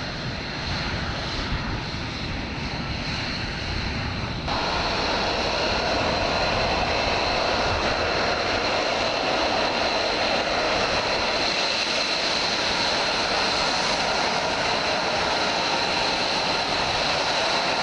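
Aircraft engine running steadily with a high whine, stepping up louder about four and a half seconds in.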